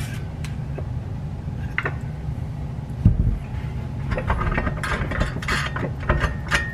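Metal parts of a snowmobile secondary clutch being fitted together by hand: light metal clicks, a knock about three seconds in, then a run of rapid clicking from the tool worked down the clutch shaft, over a steady low hum.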